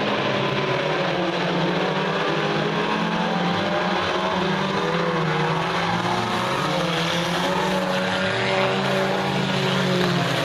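A pack of dirt-track race cars (U-Car class) running at speed, several engines at high revs sounding at once, their pitch rising and falling as the cars go round and pass by.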